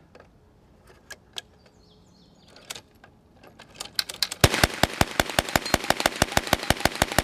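Tippmann Armory TG-900 hand-cranked 9mm Gatling gun: a few light, scattered clicks as the crank starts turning and the gun hangs up briefly, then about four seconds in it fires a rapid, even string of shots, about eight a second, that runs on as the crank keeps turning.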